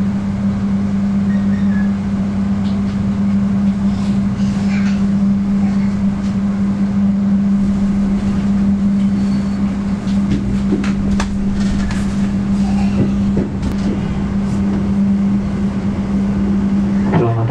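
Passenger train car interior while moving: a steady, loud low hum over rolling noise, with scattered clicks and knocks from the carriage.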